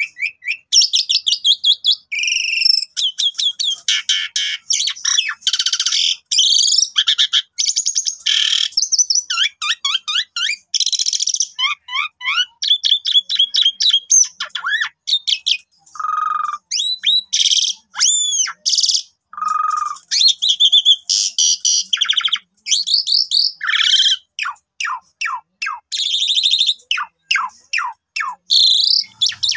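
Asian pied starling (jalak suren) singing a long, varied song: rapid chattering runs of short notes mixed with whistled glides and harsher noisy notes, almost without pause.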